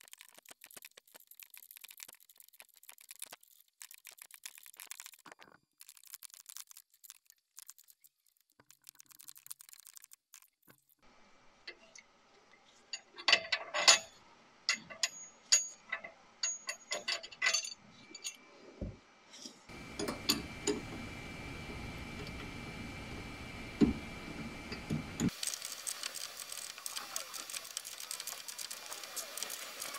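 Hand socket ratchet clicking in runs as it turns a sway bar link nut, with sharper metal knocks and clinks of the tools against the link. A steady rushing noise sits under the clicking in the later part.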